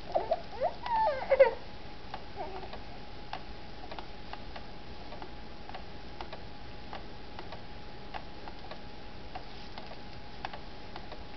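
A baby's high babbling squeals for about the first second and a half, then scattered faint clicks over a steady faint hum.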